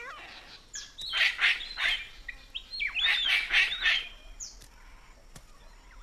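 Palm cockatoo calling: two bursts of harsh, screechy calls, each about a second long, one starting about a second in and the other about three seconds in, with a couple of short whistles between them.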